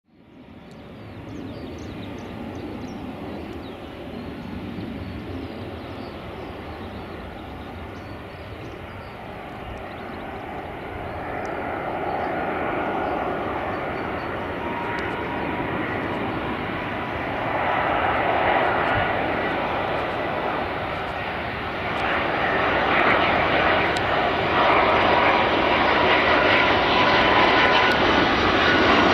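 Airbus A330-243 jet airliner's Rolls-Royce Trent 772 turbofans on final approach: a rushing engine noise with a faint steady whine that grows steadily louder as the aircraft comes closer.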